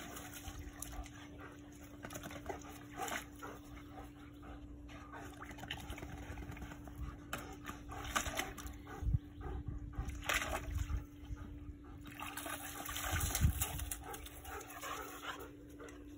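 German shepherd and golden retriever splashing in a small plastic kiddie pool, the water sloshing with a few sharper splashes and knocks scattered through, the loudest about halfway through and again later on.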